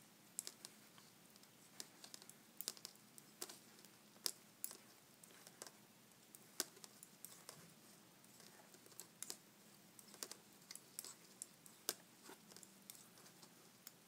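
Faint, irregular clicks of Addi Lace metal knitting needles tapping against each other as stitches are knit.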